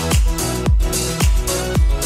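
Background music with a steady beat of about two strong low drum strikes a second.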